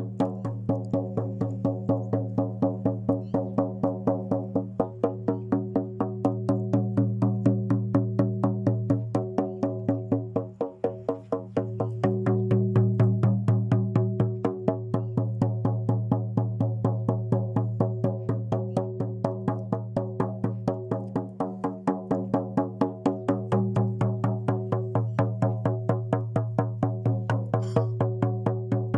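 Music: a steady low drone with a fast, even beat of sharp clicking strokes, about three or four a second.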